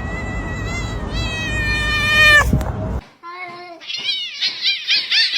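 A cat giving one long drawn-out yowl that falls away at the end. About three seconds in, after a cut, a rapid run of short high-pitched cries follows, about three a second.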